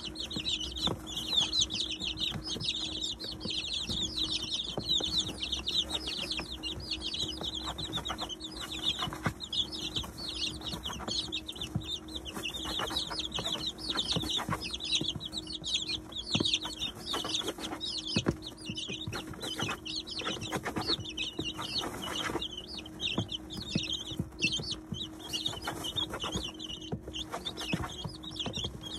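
A brood of 19-day-old chicks peeping continuously in a dense chorus of high chirps, with many quick taps of beaks pecking at feed and bedding.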